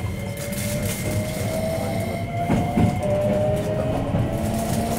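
Inside a Hankyu 9300-series electric train pulling away: the traction motor whine rises slowly in pitch over a steady low rumble of the wheels, with two quick wheel clacks over rail joints about halfway through.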